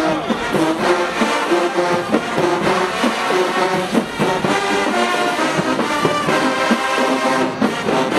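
Marching band brass section playing a loud melody of held notes over drums.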